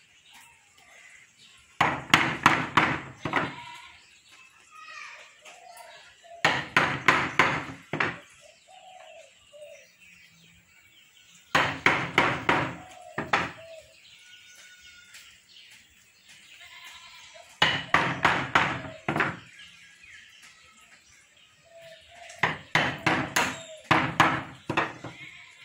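Mallet striking a wood-carving chisel into a wooden panel in five bursts of rapid blows a few seconds apart, with faint bird chirps in between.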